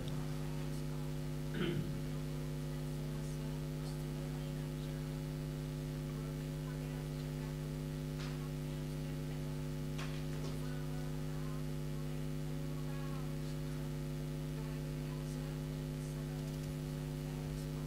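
Steady electrical mains hum, a constant drone with a stack of even overtones, with one brief faint sound a little under two seconds in.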